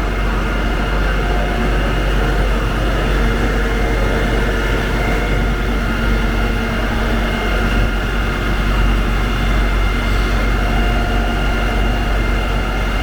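A large engine running steadily: a constant low rumble with a steady hum at several fixed pitches over it.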